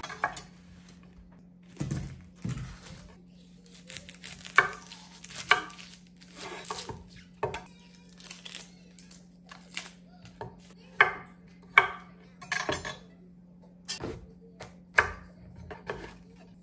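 A kitchen knife and vegetables being handled on a wooden cutting board while an onion is peeled and a squash is cut: irregular sharp knocks and clatters, over a faint steady low hum.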